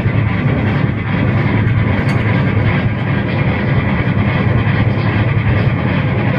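Harsh noise music: a dense, steady wall of distorted amplified noise, heaviest in the low end, with no pauses or distinct beats.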